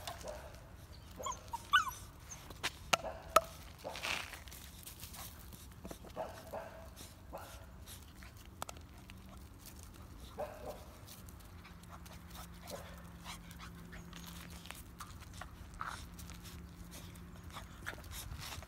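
Young dogs playing, giving a few short, high yelps and squeaks spread out with gaps, mostly in the first few seconds, among scattered light clicks and scuffs.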